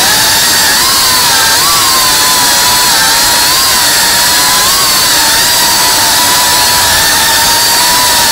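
FPV racing quadcopter's electric motors and propellers whining loudly at full flight, the pitch wavering up and down with the throttle over a constant rush of propeller noise.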